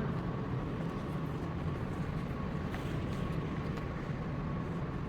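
Steady low background hum of a large store's interior, with a faint steady high tone over it and no distinct events.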